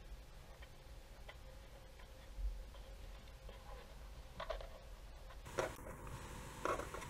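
Faint, scattered plastic clicks and taps from a small Godox LED64 video light being handled, with a few sharper clicks in the last couple of seconds.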